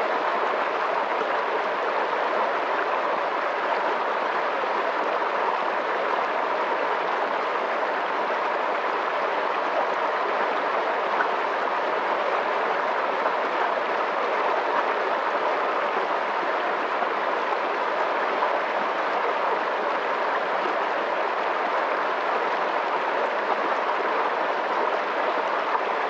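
Fast-flowing water rushing with a steady, unbroken sound.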